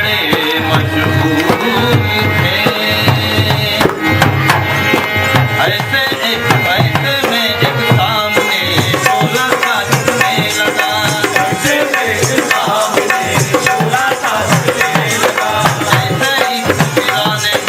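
Devotional bhajan music in an instrumental passage: hand drums keep a steady rhythm under a melody instrument.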